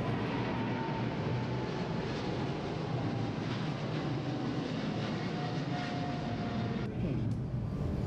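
Aircraft engines running: a steady rushing noise with a faint whine that slowly drops in pitch.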